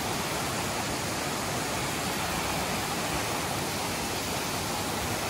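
Steady rush of water from a small waterfall spilling down a rock face into a rocky stream.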